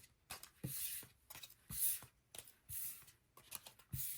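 Paper cards being handled and slid back into their packaging: several short rustling swishes with light taps.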